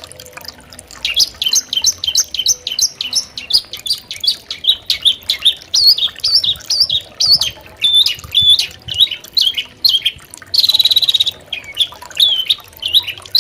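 Long-tailed shrike (cendet) singing a rapid chattering song of short, varied chirps, several a second, with a harsh buzzy call lasting about a second near the end.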